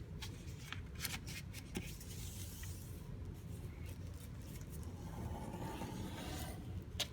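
Square sheet of paper rustling and crinkling as it is folded in half diagonally and the crease is pressed down, with scattered crackles at first and a sharp crackle near the end.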